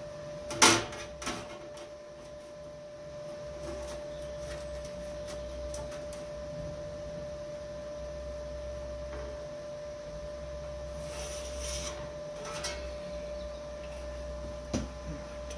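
Hand tools and sheet steel being handled on a bench while a panel is marked out: a sharp knock about half a second in, a lighter one just after, a short scrape around eleven seconds and a few light taps near the end, over a steady hum.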